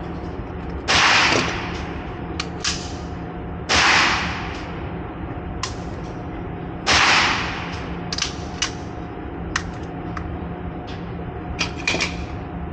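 Three loud handgun shots about three seconds apart, each with a short echoing tail, with several fainter, sharper shots in between and after them.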